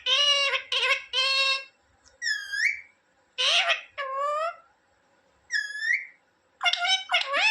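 Indian ringneck parrot giving a series of short, high-pitched calls in groups of two or three, with two rising whistled notes between them.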